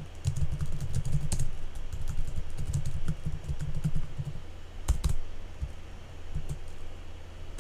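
Typing on a computer keyboard: runs of quick keystrokes with short pauses, and one sharper click about five seconds in.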